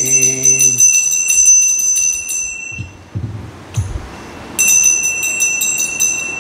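Puja hand bell rung rapidly and continuously, a bright, steady ringing made of quick strokes, marking the incense-and-lamp offering of the worship. It stops about two and a half seconds in, and a second spell of ringing starts about four and a half seconds in.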